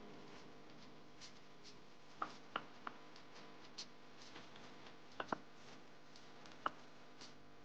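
Dry rolled oats clicking and rustling as a soft dough is pressed and rolled through them in an enamel dish: about six sharp light clicks in small groups, over a faint steady hum.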